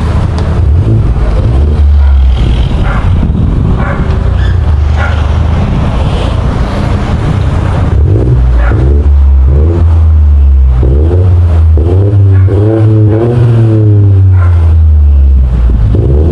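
BMW 118i F40's three-cylinder turbo engine heard through an aftermarket sports rear exhaust with M Performance tips while the car is driven. It is a loud, steady low drone that rises and falls in pitch as the engine speeds up and eases off, most noticeably in the second half.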